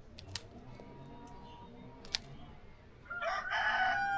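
Light Brahma rooster crowing: a couple of sharp clicks, then about three seconds in a loud crow begins, a rough burst settling into a long held note.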